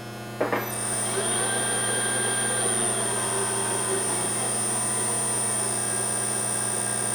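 Jet 20-inch electronic variable speed drill press switched on with a click about half a second in, then running steadily in its low speed range with a hum and a high, steady whine.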